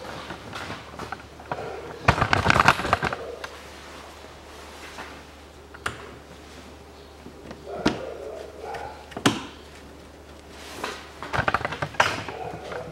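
Plastic push-in clips and the plastic engine splash shield being handled and pressed into place. There is a cluster of clicks and rattles about two seconds in, then single sharp clicks every couple of seconds, and another cluster near the end.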